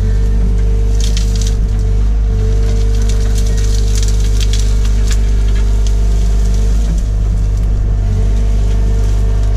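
Excavator's diesel engine and hydraulics running steadily, heard from inside the cab, while the bucket tears through gorse bushes with repeated crackling and snapping of branches, densest about a second in and again around four to five seconds in.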